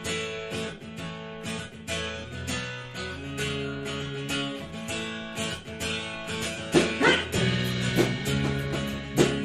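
Background music: a strummed acoustic guitar playing chords in a steady rhythm.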